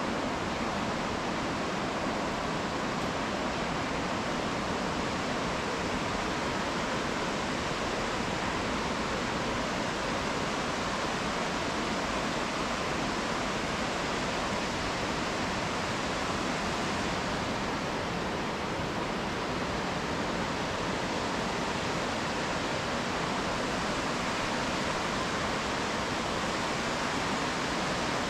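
Rushing river water: a steady, even rush of moving water that does not let up.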